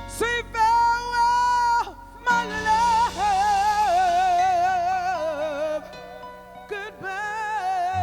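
A soul singer, most likely female, holds long high notes with wide vibrato over a live band's accompaniment. A held note breaks off near the two-second mark, then she starts a new phrase and sustains it with vibrato to the end.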